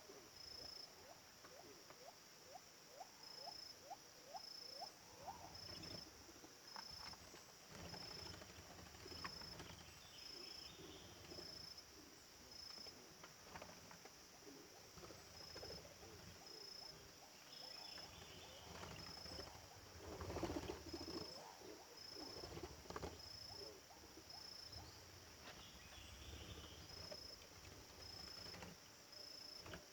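Faint insect chirping: a high, evenly pulsed note that repeats throughout. Scattered soft rustles and knocks are heard too, loudest about two-thirds of the way through.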